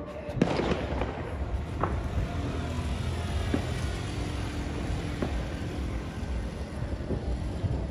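Fireworks going off all around the town: a continuous rumble of distant bursts, with a sharper bang about half a second in and scattered fainter cracks.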